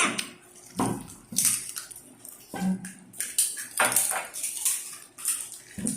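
People eating crisp pani puri shells: a string of irregular crunches and chewing noises.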